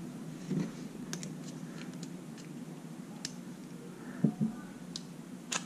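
Scattered light clicks and a couple of soft knocks as a pry tool works the small rubber screw covers off a plastic smart-plug housing.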